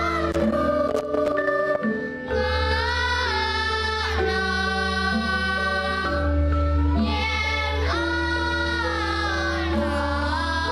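Children's choir of girls singing a Javanese-language song in unison, holding long sustained notes, over a steady instrumental accompaniment.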